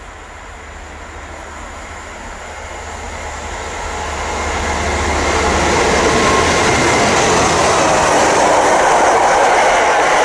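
Freightliner Class 66 diesel locomotive hauling a freight train past, growing steadily louder over the first six seconds, then the wagons rolling by with wheels clattering on the rails.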